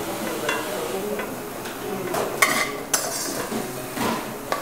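A metal serving spoon scraping and clinking against a wok as stir-fried beef is spooned out onto a plate, in several short strokes, the loudest about halfway through.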